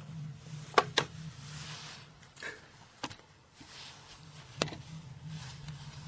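Paper sack stuck over a cat's head rustling and crackling as the cat backs away, with a handful of sharp crinkles, the loudest about a second in.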